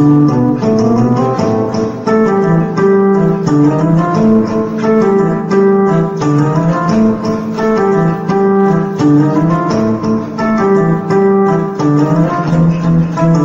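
Electronic keyboard played with both hands: held chords over a moving bass line, with a sustained, organ-like tone.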